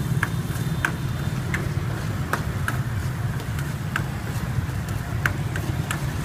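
Steady low rumble of street traffic, with scattered light metallic clicks as a metal ladle knocks against a wok while stirring frying offal.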